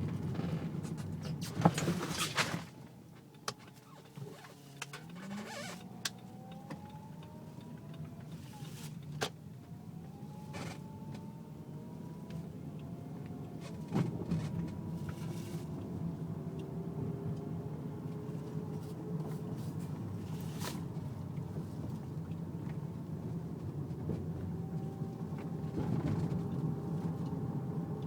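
Car power steering whining over the engine's steady hum: thin whines that slowly rise and fall in pitch as the wheel is turned, with scattered clicks and knocks. The whine comes on when turning at low speed; the owner takes it for a worn power steering pump, while a mechanic blamed the rack and pinion.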